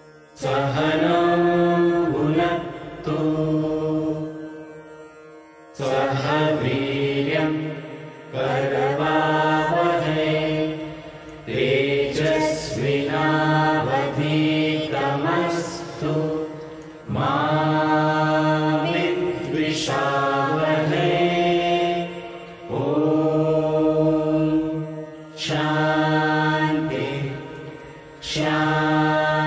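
A group of voices chanting Sanskrit prayer verses (shlokas) together. They sing in short melodic phrases with held notes and brief pauses between them.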